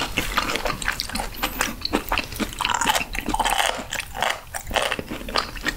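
Close-miked chewing of raw sturgeon sashimi with its crunchy spine cartilage: a quick, irregular run of crisp crunches and wet bites.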